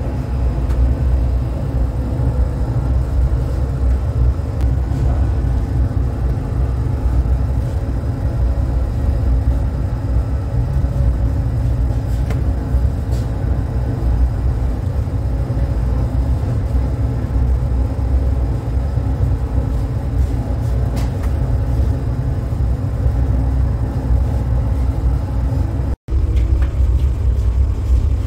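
Commercial rotary bread oven and bakery machinery running: a loud, steady low rumble with a faint hum, with a few light clicks and a short break near the end.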